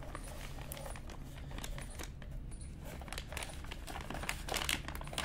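Foil-lined plastic earphone pouch crinkling as it is handled and torn open by hand: a string of small crackles and rustles, with a low steady hum underneath.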